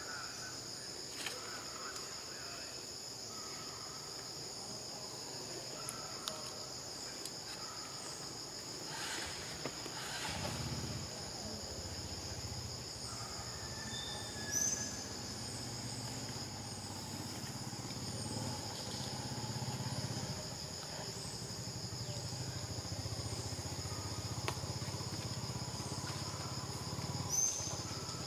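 Steady insect chorus, a constant high buzz. A low rumble comes in about ten seconds in and carries on beneath it, and a couple of short, sharp high chirps stand out.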